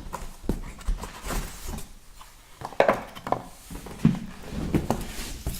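Cardboard shipping box being opened and handled: irregular rustling and scraping, with a few dull knocks and thumps about three and four seconds in.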